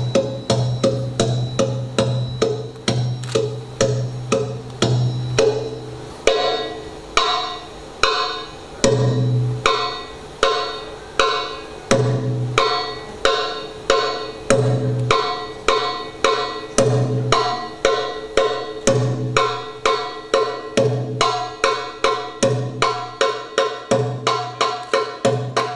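Live hand-drum ensemble of darbuka goblet drums and a frame drum playing a fast belly-dance drum rhythm: quick sharp strokes over deep bass strokes. About six seconds in the pattern changes, with brighter strokes and a deep stroke about every two seconds.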